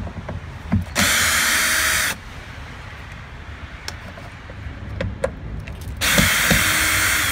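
Cordless drill-driver running twice, about a second each time, backing out the screws that hold an old door speaker in place. Light clicks of handling come between the two runs.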